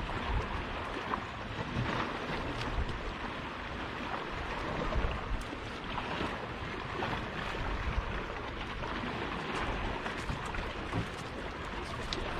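Small waves lapping against a wooden rowing boat, with wind buffeting the microphone as a low rumble and a few faint light clicks.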